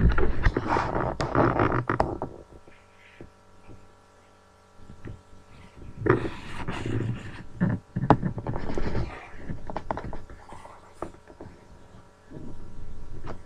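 Irregular rubbing and bumping noise from the camera being handled and moved, loudest in the first two seconds and again in the middle, over a steady electrical whine.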